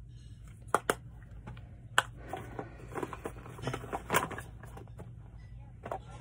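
Scattered sharp clicks and light taps of small objects being handled, over a steady low hum; a busier run of taps comes in the middle.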